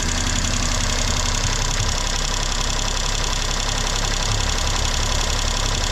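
Toyota Duet's warm engine idling steadily, its idle being held by the idle air control valve that is under test for an erratic idle.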